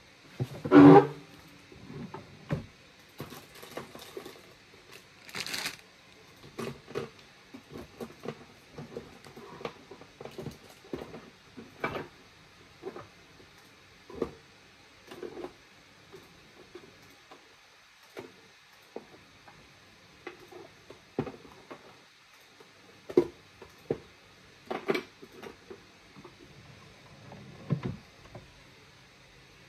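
Small objects being handled and set down on a tabletop: scattered light clicks and taps at an uneven pace. There is a louder knock about a second in and a brief rustle about five seconds in.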